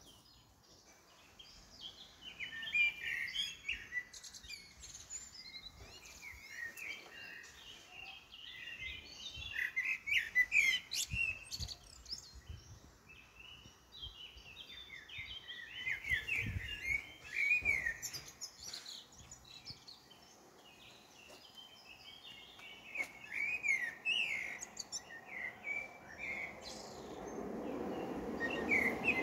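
Small birds chirping and twittering in quick, overlapping calls. A low rushing noise builds up near the end.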